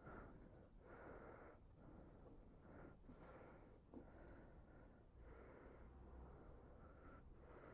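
Faint breathing close to a microphone mounted inside a helmet: about six breaths, in and out. The breather has a sore throat and is a bit asthmatic after exertion.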